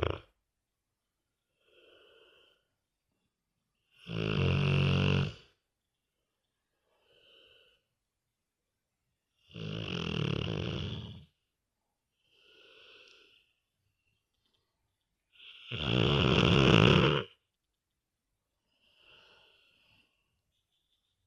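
Boxer dog snoring in his sleep: a loud snore every six seconds or so, each lasting one to two seconds, with a faint breath halfway between.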